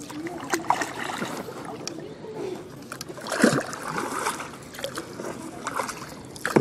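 Floodwater sloshing and splashing, with scattered light knocks and one louder splash about three and a half seconds in.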